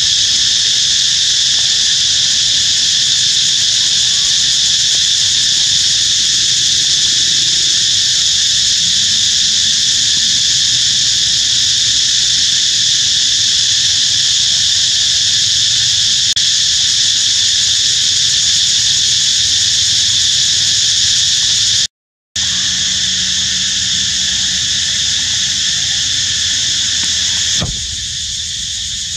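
Loud, steady chorus of insects droning in several high bands. It cuts out for a moment about two-thirds of the way through, and drops slightly after a click near the end.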